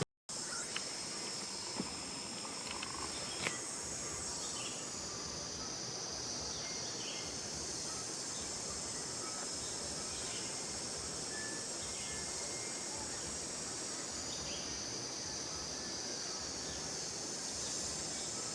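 Steady, high-pitched chorus of insects such as crickets or cicadas, with a few faint short chirps and a couple of small clicks in the first few seconds.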